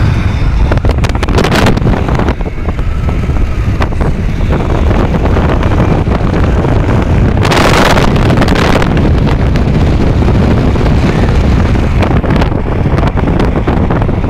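Steady rumble of road and wind noise inside a car at motorway speed, with wind hitting the microphone. About halfway through, a louder rush of hiss lasts about a second.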